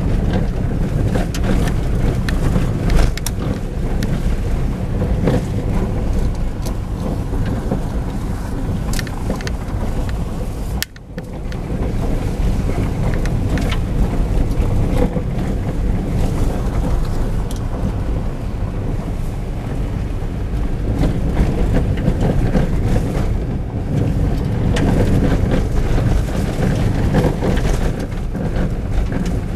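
Hyundai i10 driving on a gravel and dirt track, heard from inside the cabin: a steady low rumble of engine and tyres on loose gravel, with frequent small clicks and knocks. The sound dips briefly about eleven seconds in.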